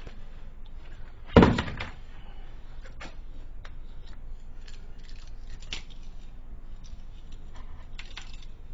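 Pliers clicking and scraping on the metal mounting ears of a light switch as they are bent off, with one sharp, loud clunk about a second and a half in.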